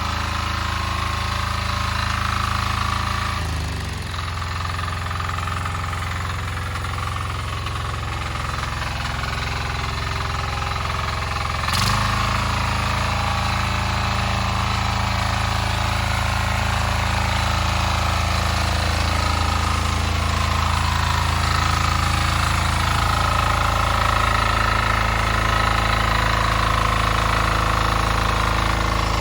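Weima diesel walk-behind tractor's single-cylinder engine running steadily; its note changes about four seconds in, then it runs louder from about twelve seconds in.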